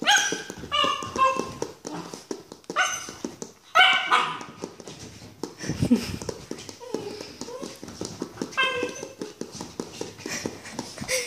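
Rottweiler puppy barking and yipping in short, high-pitched bursts while playing: a cluster of barks in the first four seconds and another near nine seconds.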